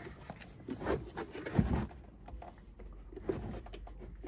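Hollow plastic knocks and scrapes as a robot lawn mower is pushed and set into place inside its plastic storage box, a few knocks with the loudest, a dull thud, about a second and a half in.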